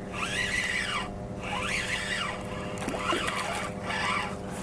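A small motor hums steadily at a fixed pitch. Over it come several high, squeaky rising-and-falling sounds, about one a second.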